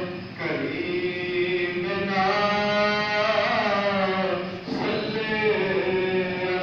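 A man's voice chanting an Islamic supplication (dua) in long, drawn-out melodic phrases, pausing briefly twice.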